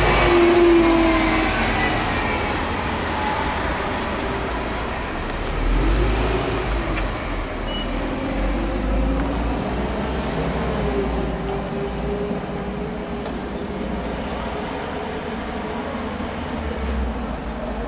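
Road traffic: a vehicle engine passes close by at the start, its pitch falling, then another vehicle goes by about six seconds in, over a steady traffic noise.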